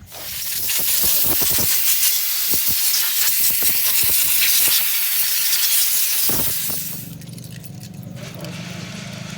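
Loud steady hiss of a pressurised jet, cutting off about seven seconds in; a quieter steady low hum carries on after it.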